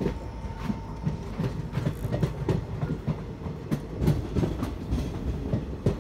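Express passenger coach's wheels clattering over rail joints as the train pulls out of the station, a steady rumble with irregular sharp knocks a few times a second, heard at the coach's open door.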